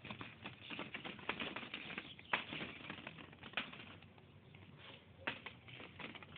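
Small plastic ball-pit balls clattering and knocking against each other as a pet moves through them: quick irregular clicks, busiest in the first couple of seconds, with a few sharper knocks later.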